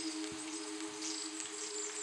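Singing bowls ringing on in steady low tones, under a high chirping of insects such as crickets.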